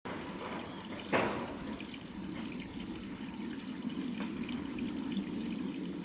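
Steady trickle of running water, with one brief louder sound about a second in.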